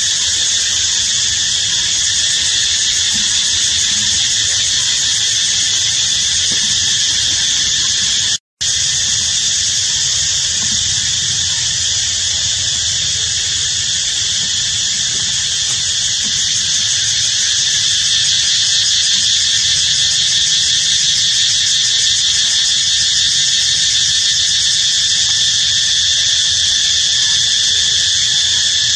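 Steady, loud, high-pitched buzzing drone of an insect chorus, unbroken apart from a momentary dropout about eight seconds in.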